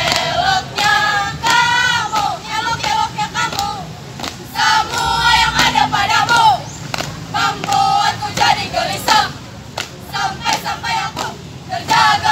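A group of schoolgirls singing and chanting in unison in short, loud, high-pitched phrases, with sharp hits now and then from their drill movements.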